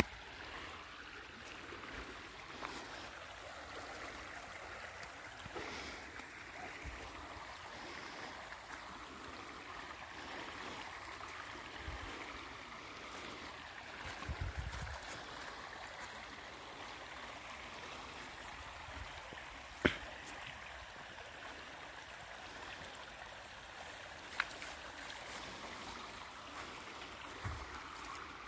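Muddy river flowing: a steady rush of water. There are a few low bumps, and a sharp click about two-thirds of the way through is the loudest moment.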